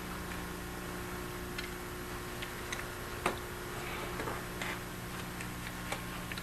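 Scattered light clicks and taps of a Phillips screwdriver working small screws out of a fiber optic endoscope's umbilical control section, with a sharper click about three seconds in and a brief scrape a second later, over a steady electrical hum.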